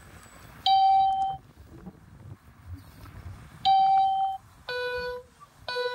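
Electronic beeping: two long, loud beeps about three seconds apart, then from about five seconds in a lower beep repeating about once a second.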